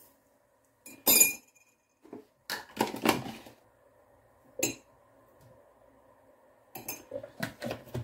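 A metal spoon clinks against a mug and a coffee jar, with one sharp ringing clink about a second in. Then come clusters of knocks and clatter as containers are handled and a tin of coffee creamer is set down on the worktop. A faint steady hum from the electric kettle heating water sits underneath.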